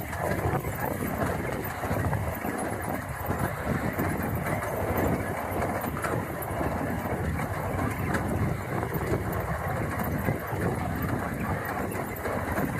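An ATV engine running during a ride, with steady, rough, uneven noise from the machine.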